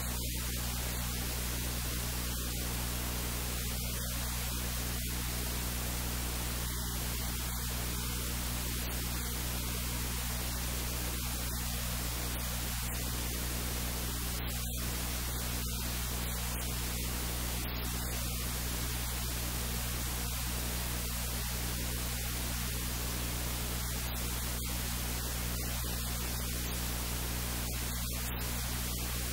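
Steady hiss of static over a low, constant electrical hum, with no other sound standing out: a noisy audio track.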